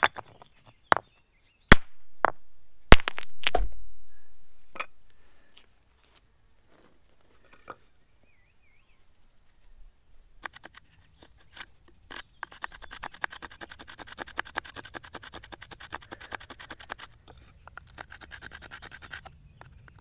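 A few sharp knocks in the first four seconds. Then, from about ten seconds in, a sharp stone flake saws rapidly back and forth across a wooden branch, a dense, raspy scraping.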